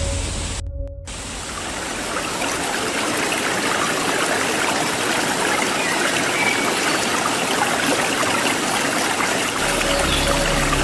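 Waterfall water rushing in a steady hiss that fades in after a brief dropout about a second in, with a few faint bird chirps. A low steady drone returns near the end.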